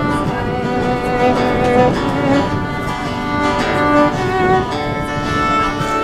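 Acoustic guitar strummed under a fiddle bowing a melody, a live string duet.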